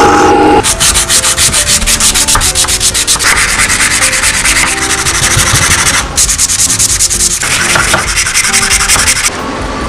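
A wooden handle piece rubbed back and forth by hand on sandpaper: fast, rhythmic scraping strokes, several a second, with a brief pause about six seconds in. At the very start a drill press runs briefly before the sanding begins.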